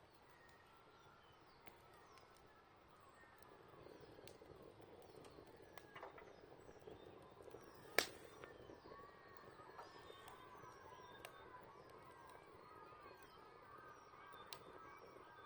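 Faint chorus of birds singing, many overlapping chirps and warbles, with occasional crackles of a wood campfire and one sharp pop about halfway through.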